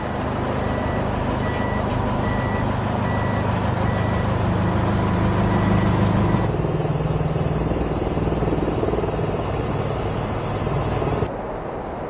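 Heavy vehicle engine running with a reversing alarm beeping at a steady pace, about three beeps every two seconds, fading out after about five seconds. At about six and a half seconds the sound cuts abruptly to another steady engine drone, which stops suddenly near the end.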